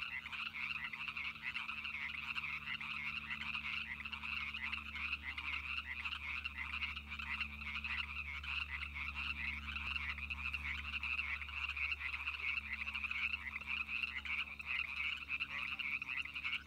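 Dense chorus of many frogs calling together: a continuous mass of rapid, overlapping calls, with a faint low hum beneath.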